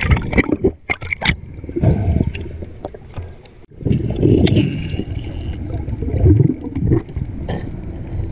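Splashing as a snorkeler breaks the surface, then, a few seconds in, the muffled rushing and gurgling of water heard underwater.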